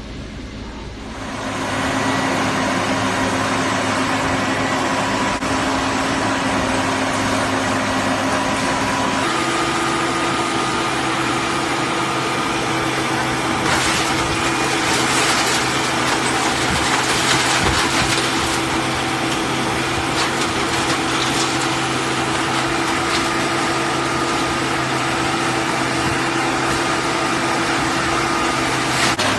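Hydraulic scrap car baler running: a steady hum from its power unit whose pitch steps up about nine seconds in, with a stretch of irregular crackling and knocks in the middle.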